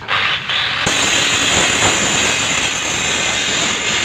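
Loud, steady rushing hiss that starts suddenly, with a sharper high-pitched hiss joining a second in.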